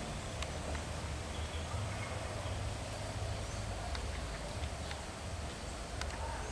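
A few sharp, irregular taps, typical of a white-barred piculet pecking at a branch, over a steady low rumble of wind.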